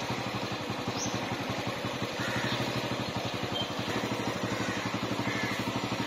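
Small auto-rickshaw engine idling with a steady, fast, even beat.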